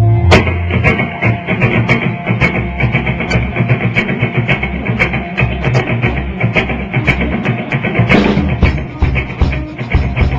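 A band playing a rock song: guitar over bass notes and a steady drum beat.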